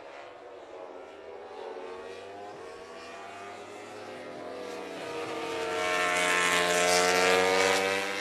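MotoGP race motorcycle engine running at speed, swelling louder over the last few seconds as the bike nears, then cutting off suddenly near the end.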